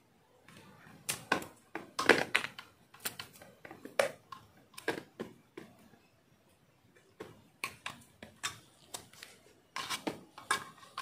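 Handling noise from an LED downlight and its cable being worked by hand: irregular clicks and knocks of plastic parts, with a lull in the middle.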